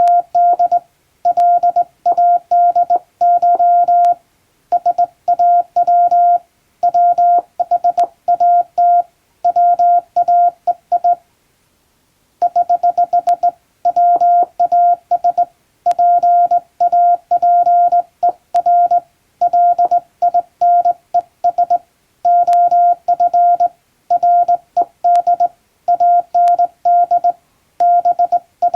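Hand-sent Morse code from a JRC telegraph key, heard as a single mid-pitched beep tone keyed into short and long elements grouped into letters and words. It spells out an English plain-language telegram, with a pause of about a second near the middle.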